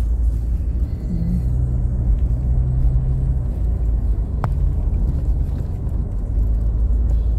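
Low, steady rumble of a car's engine and tyres heard from inside the cabin while driving, with one short sharp click about four and a half seconds in.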